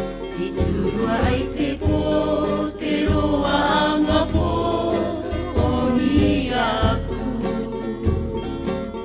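Background music: a Cook Islands Māori song, with voices singing together over instrumental accompaniment and a steady, repeating bass line.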